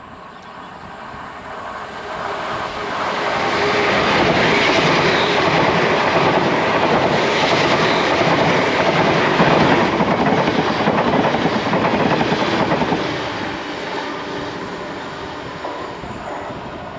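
A train passing by on the line, its noise building over the first few seconds, loudest through the middle, then fading away near the end.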